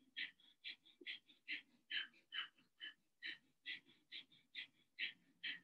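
A woman doing breath of fire: short, fast, forceful breaths through the nose with the stomach pumping, in an even rhythm of about two puffs a second.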